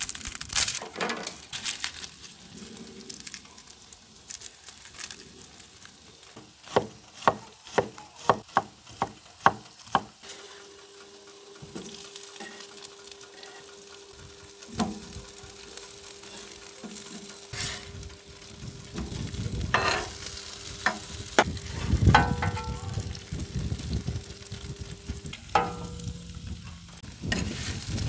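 Sharp knocks on a wooden cutting board in a quick even run, then bacon and potato wedges sizzling on a stainless flat-top griddle while metal spatulas scrape and turn them.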